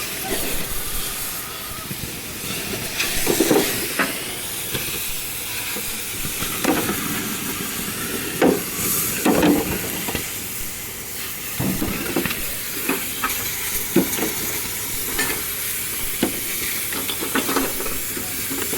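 A steady hiss with irregular sharp knocks and clanks every second or two.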